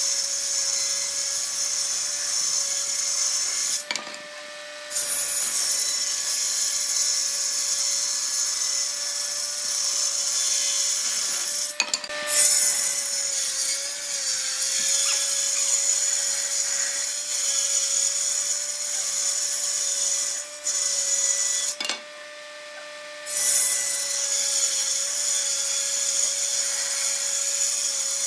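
A woodworking power tool running with one steady tone that wavers slightly under load, over the high hiss of wood being cut. The sound breaks off briefly twice, about four seconds in and again about three quarters of the way through.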